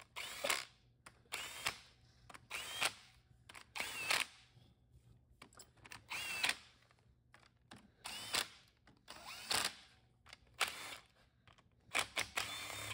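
A cordless power driver runs the valve-body bolts down into a W4A33 automatic transmission, one bolt at a time. It gives about ten short bursts, roughly one a second, each a brief whine that rises and falls.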